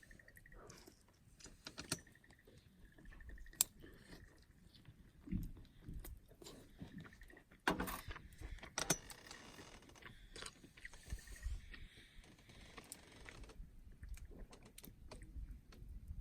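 Scattered clicks, knocks and rustling, as of small objects being handled, with louder knocks about three and a half and about eight seconds in.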